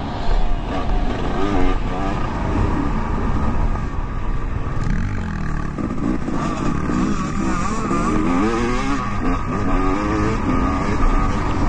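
Dirt bike engine heard from on board while riding, revving up and dropping back again and again as the rider opens and closes the throttle around the track.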